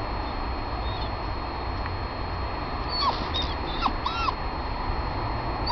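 A dog whining a few times in short, arched whimpers about halfway through, over a steady background hiss and low rumble.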